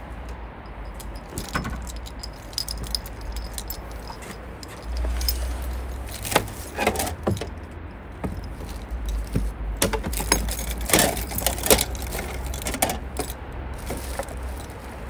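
Rummaging through a car's open boot: scattered clicks, clatters and jangling as items are moved about, busiest around the middle and again near the end, over a low steady rumble.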